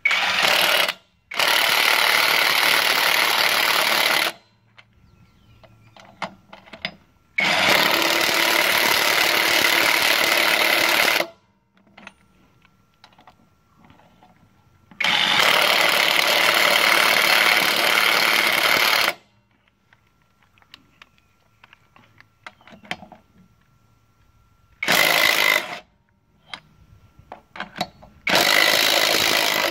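Brushless 20 V AutoJare cordless 1/2-inch impact wrench hammering lug nuts back onto a steel wheel, in six loud bursts. The longest run about three to four seconds and the shortest about a second. Between bursts there are only faint clicks.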